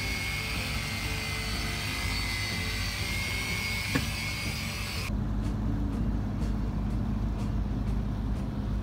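Corded electric polisher whining at high speed as it buffs the boat's deck, cutting off suddenly about five seconds in. A boat engine drones steadily underneath.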